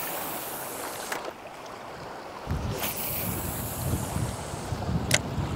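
Steady rush of water, with wind buffeting the microphone from about two and a half seconds in, and a single sharp click near the end.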